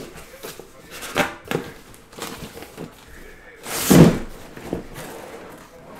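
A cardboard shipping case being handled and opened by hand: a few light knocks and scrapes on the cardboard, then a louder scrape and thud about four seconds in as a flap is pulled back.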